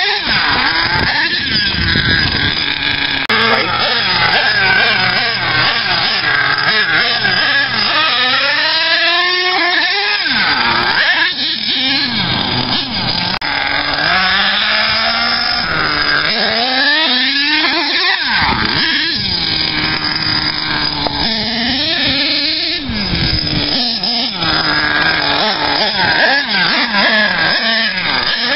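HPI Savage RC monster truck's Axial .28 two-stroke nitro engine revving, a buzzing whine that climbs and falls in pitch over and over as the throttle is opened and closed.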